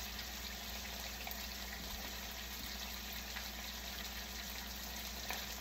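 Two steaks sizzling steadily in hot oil in a frying pan, a constant crackling hiss with a faint low hum beneath it.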